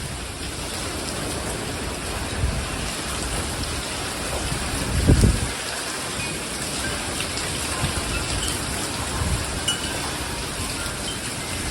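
Derecho storm: heavy rain and straight-line winds in a steady rush, with low gusts surging about two and a half, five and nine seconds in, the strongest about five seconds in.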